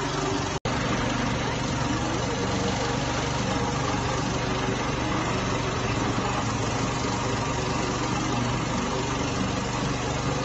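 An engine running steadily at an even speed, with a low hum, and a very brief dropout in the sound a little over half a second in.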